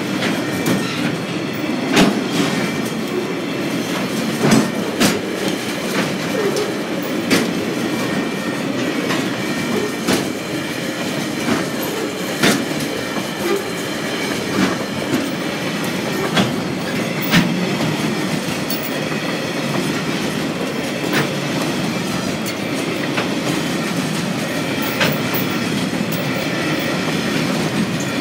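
Loaded freight wagons, log and container flat cars, rolling past at close range: a steady rumble of steel wheels on rail, broken by sharp clicks every second or few as the wheels cross rail joints, with a faint high wheel squeal.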